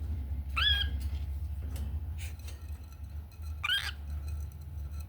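Cockatiel giving two short chirps about three seconds apart, each rising in pitch and then levelling off, over a steady low hum and a few faint clicks.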